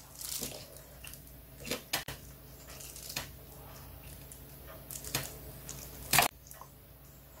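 Soft squishing and scattered light clicks of a plastic-gloved hand and wooden chopsticks pulling apart spicy marinated raw crab over a plate of rice, with a sharper click about six seconds in.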